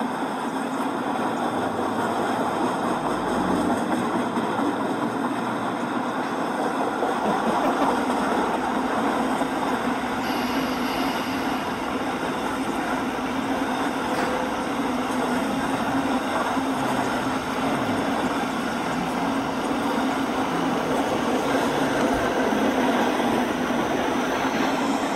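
Model railroad freight trains running on the layout: a steady rolling rumble of metal wheels on the track with a constant low hum, changing character about ten seconds in.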